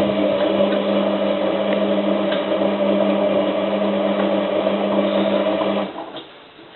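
Hotpoint 9534A washing machine's motor running steadily, tumbling the drum during the heating stage of an 85 °C cotton wash, then stopping about six seconds in.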